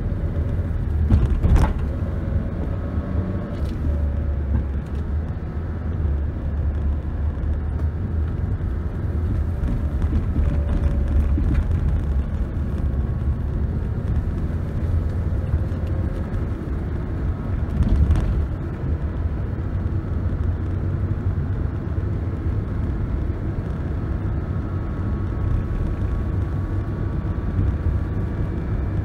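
Car driving slowly along a forest road: a steady low rumble of engine and tyres, with two brief knocks, about a second and a half in and again around eighteen seconds.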